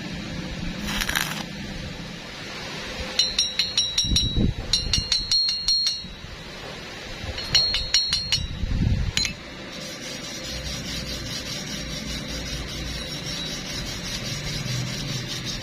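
Metal being struck lightly several times a second, each strike ringing, in two runs of a few seconds each.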